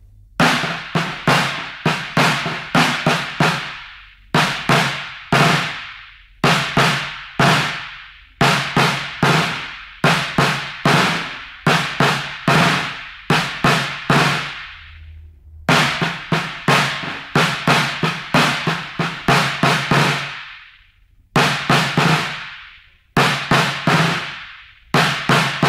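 Caixa, the Brazilian samba snare drum, played with two sticks: repeating rhythmic phrases of sharp strokes, with two short pauses in the middle and later on.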